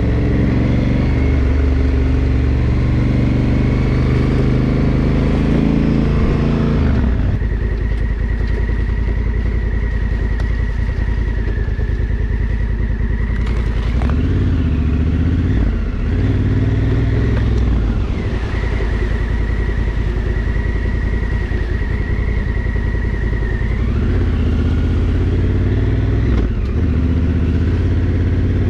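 Adventure motorcycle engine running under way on a dirt road, the revs rising and falling with the throttle several times.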